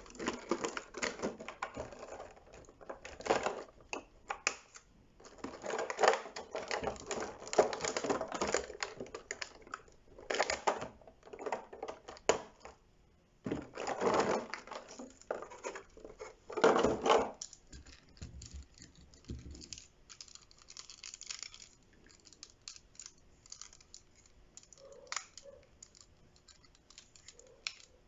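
Handling of a Transformers Studio Series Grimlock figure and its plastic packaging: irregular rustling, crinkling and clicking in bursts, loudest in the first two-thirds, then thinning to scattered light clicks.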